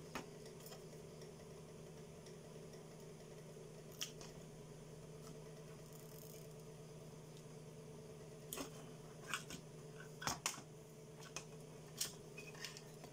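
Scattered sharp clicks and taps of a soldering tool and a circuit board being handled while an electrolytic capacitor is desoldered, one about 4 s in and a cluster in the last few seconds, over a steady low hum.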